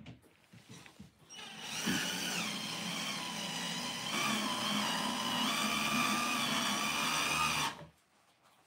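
Cordless drill driving a fastener into a bed frame: its motor whines steadily for about six seconds, starting over a second in and stopping shortly before the end, with the pitch shifting a couple of times as it runs.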